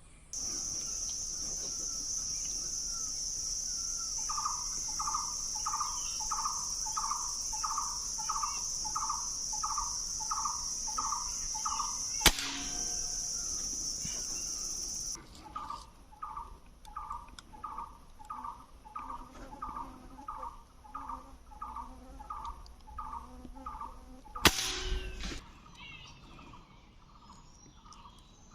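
A bird calls over and over at about two notes a second, in two long runs, over a steady high-pitched insect drone that cuts off about halfway through. Two sharp shots ring out about twelve seconds apart, the second one with a short rumble after it.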